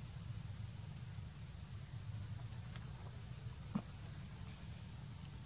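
Steady high-pitched insect drone over a low rumble, with one faint click a little before four seconds in.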